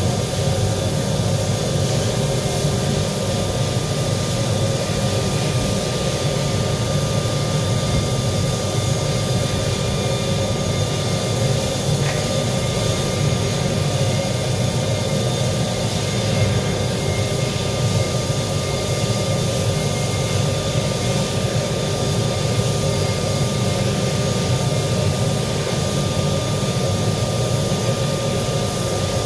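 Electric arc welding: a steady, unbroken hiss over a low hum, with a faint constant high tone throughout.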